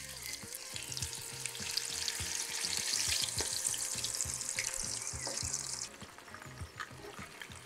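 Nacho-chip-breaded chicken breast sizzling and crackling in hot oil at 170–180 °C in a frying pan, right after being lowered in. The hiss builds over the first few seconds, then drops suddenly to a quieter sizzle about six seconds in.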